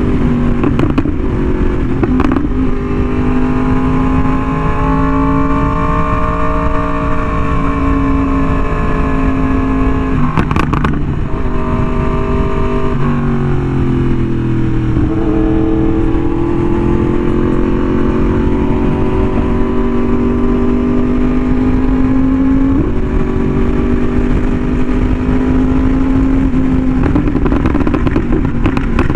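Yamaha R1M's crossplane inline-four running through an SC Project exhaust at a steady cruise. The engine note drifts slowly up and down, breaks briefly about ten seconds in, dips around thirteen seconds, then climbs gradually. A heavy low rumble of wind runs underneath.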